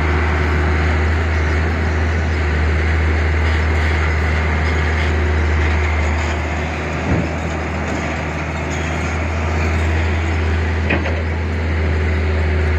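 Diesel engine of a loaded UD Nissan dump truck running as it drives off over dirt, a steady low rumble, with a brief thump about seven seconds in.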